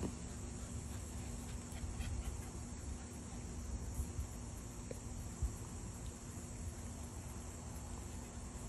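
Crickets chirping in a steady high-pitched chorus, with a couple of faint low thumps about four and five and a half seconds in.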